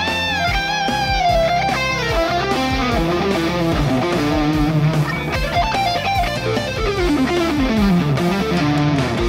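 Electric guitar solo on a PRS SE Custom 24 played through a Line 6 Helix, fast fusion-style lines with string bends and a long descending run from about the middle toward the end, over a band backing with drums.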